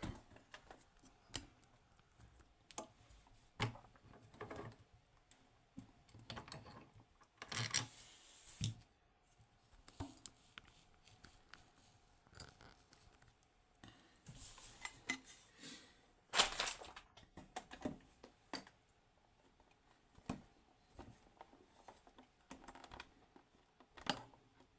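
Handling noise at a workbench: scattered light clicks and short knocks of small metal parts and tools being picked up and set down, with a few louder clatters.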